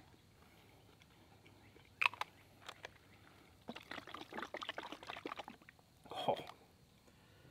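Plastic seasoning container being handled over a plate: a couple of sharp clicks from the cap about two seconds in, then about a second and a half of fast rattling as the seasoning is worked out, and one short clatter near the end.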